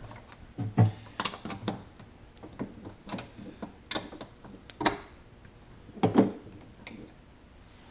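Irregular metallic clicks and knocks of a wrench and bolt hardware worked by hand on the exhaust pipe mount of a Kawasaki JS550 jet ski engine, with the loudest knocks about a second in and about six seconds in.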